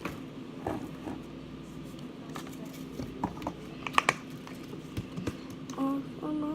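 Scattered light clicks and taps of a spoon stirring slime in a bowl, over a steady low hum. Near the end a child starts singing.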